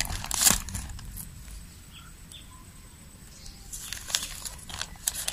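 White plastic courier mailer bag rustling and crinkling as it is handled: one crackle about half a second in, then a run of quick crinkles in the last second and a half.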